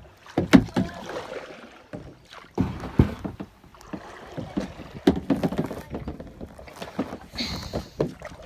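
Plastic kayak and paddle being handled: irregular hollow knocks and thumps with scraping between them, as the boat is brought in to a muddy bank.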